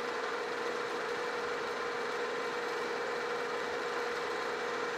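Metal lathe running steadily while a carbide insert turns down a steel shaft. There is an even hum with a constant tone over a hiss of cutting.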